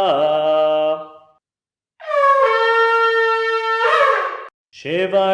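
Ram's-horn shofar blowing: one blast ends about a second in, then after a short pause comes a single long, steady tekiah blast that steps up in pitch as it starts and rises at its end. Near the end a new blast begins.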